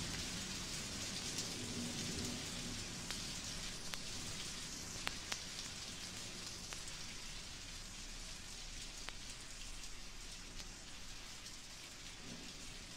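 Thunderstorm field recording played from a 1956 vinyl record: steady rain hiss with scattered sharp drip ticks. A low thunder rumble dies away over the first two seconds or so, and another faint one comes near the end.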